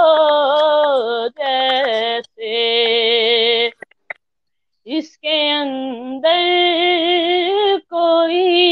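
A boy singing a naat unaccompanied over a video call, holding long, wavering notes in phrases broken by short breaths, with a longer pause a little under four seconds in.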